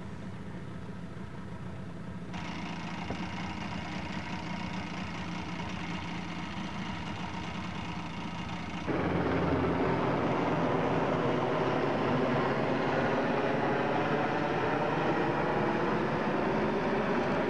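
Sailboat's auxiliary motor running steadily under way, a low hum. The sound changes abruptly about two seconds in and again about nine seconds in, stepping up louder each time.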